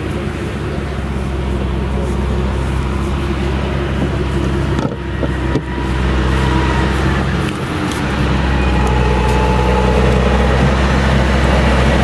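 Case IH tractor's diesel engine running steadily as it pulls a loaded silage trailer toward the microphone, growing louder as it approaches, with a forage harvester working further off.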